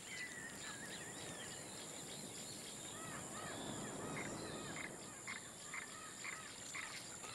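Wild forest ambience: small birds giving short, repeated arching chirps that come thicker in the second half, over a steady high-pitched insect drone. A soft, noisy swell rises and fades in the middle.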